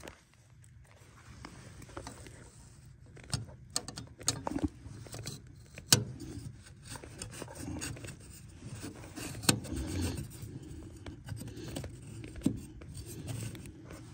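Close handling sounds: scraping and rustling of hands and clothing, with a few sharp clicks and knocks spread through.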